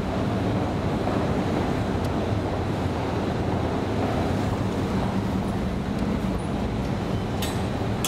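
Steady low rumble and hiss of an underground metro station's air, with a faint even hum, and two sharp clicks near the end.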